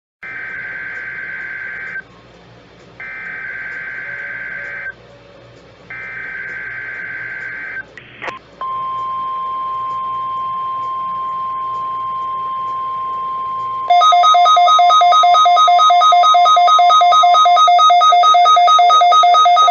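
NOAA Weather Radio alert test signal heard off a receiver. It starts with three bursts of warbling SAME digital header data, each about two seconds long, then the steady 1050 Hz warning alarm tone. About fourteen seconds in, a louder, rapidly pulsing electronic alarm beep joins: a weather alert receiver set off by the test.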